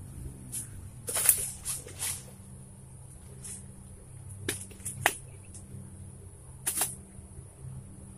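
Scattered short clicks and rustles, about six in all, from an angler shifting among bushes and handling his rod. They sit over a steady high-pitched hiss and a faint low hum.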